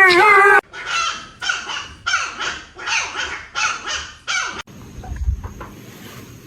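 A dog vocalising: a brief pitched howl at the start, then a run of about eight short, sharp yips or barks. It breaks off suddenly about four and a half seconds in, leaving a quieter low rumble.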